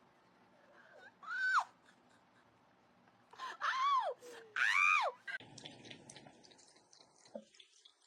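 A cat meowing loudly three times, each meow rising and then falling in pitch: one about a second in, then two close together about halfway through.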